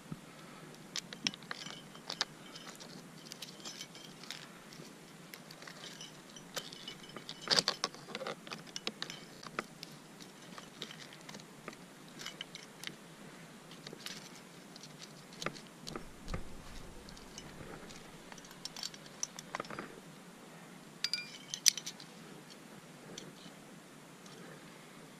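Metal climbing hardware, carabiners and trad gear on a rack, clinking and jingling in scattered light clicks. There are a few louder clanks about seven and a half seconds in and again near twenty-one seconds, and a brief low rumble around sixteen seconds.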